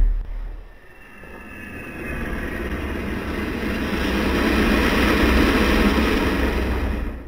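Dragon sound effect: a low, rumbling, noisy sound that swells gradually over several seconds and then cuts off suddenly.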